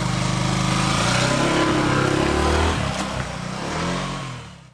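Motorcycle engine running as the bike pulls away and rides off, its pitch shifting up and down from about two seconds in. It fades near the end and then cuts off abruptly.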